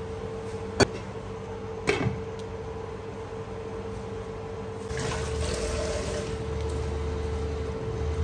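A sharp knock about a second in and a louder clatter around two seconds in as a glass lid and wooden spatula are set on the pan. From about five seconds the broth under the lid starts bubbling at a simmer, over a steady hum from the induction cooktop.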